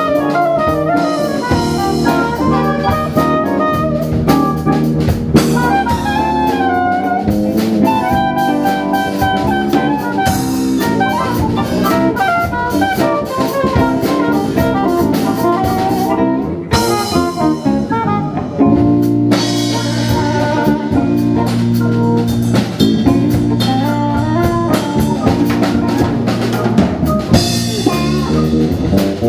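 A jazz-fusion band playing live: drum kit, electric bass, electric guitar and keyboard under a melodic lead line. About two-thirds of the way through the cymbals drop out briefly, then come back in over a heavier bass line.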